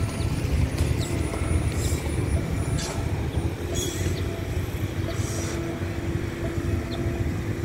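Steady low rumble of motor vehicles, with a faint steady hum coming in about halfway through.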